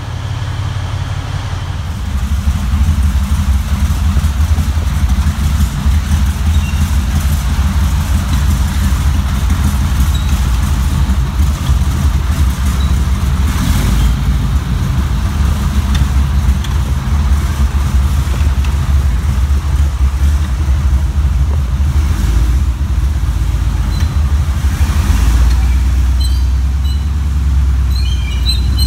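A large vehicle engine running at a steady idle, a deep low rumble that grows louder about two seconds in and holds steady.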